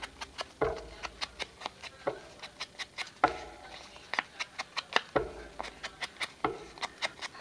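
Foam ink dauber tapped onto an ink pad and dabbed around the edges of paper tags: quick light taps several times a second, with a handful of duller thumps.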